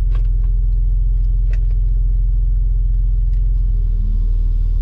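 Off-road 4x4's engine idling with a steady low hum, heard from inside the cab, with a few light clicks. The hum shifts slightly about four seconds in.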